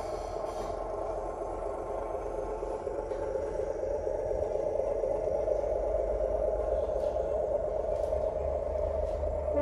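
Zimo sound decoder in an O gauge Class 128 model railcar playing its diesel engine sound through the model's small onboard speaker as it runs along the track. The sound is steady and grows a little louder about four seconds in, with a few faint clicks.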